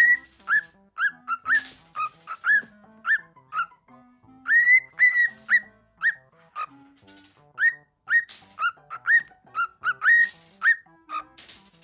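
A cockatiel whistling a tune: a quick run of short, clear whistled notes, many rising at the start, repeated rhythmically like a learned song.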